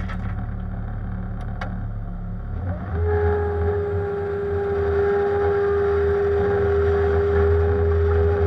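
Bobcat compact machine's diesel engine running under load while working in shale. About three seconds in, the engine note rises and a steady high whine sets in and holds, typical of the hydraulic pump working hard.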